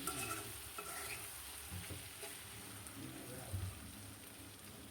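Amra (hog plum) pickle sizzling faintly in oil in a karai, with a spoon stirring it and a few light knocks against the pan.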